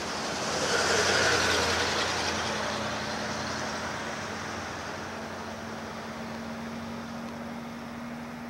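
A road vehicle passing close by on the street: its noise swells to a peak about a second in, then fades away slowly. A thin steady hum runs underneath.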